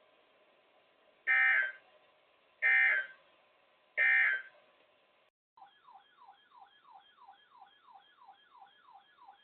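Three short bursts of EAS/SAME digital data tones, each a raspy warble about half a second long and about a second and a quarter apart: the end-of-message signal that closes a NOAA Weather Radio required weekly test. About two seconds later a faint, quick warble starts, rising and falling about three or four times a second.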